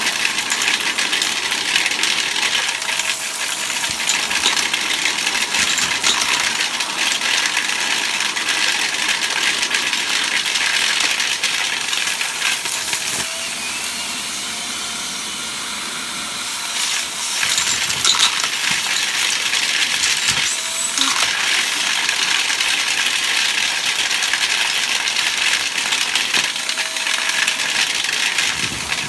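Canister vacuum cleaner running as its wand sucks up a pile of lint, dirt and grit from a shag rug, with debris rattling and clicking through the wand and hose.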